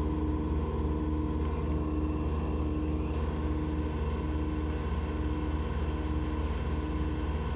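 Engine running steadily at full throttle with no load: an even, unchanging drone.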